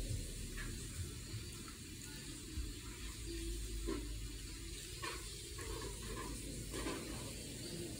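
Faint, steady hiss of room noise with a few soft, short clicks scattered through it.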